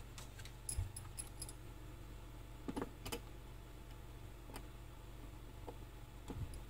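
Faint, scattered clicks and ticks of a small screwdriver working the adjustment screw of a trimmer potentiometer on a circuit board, over a low steady hum.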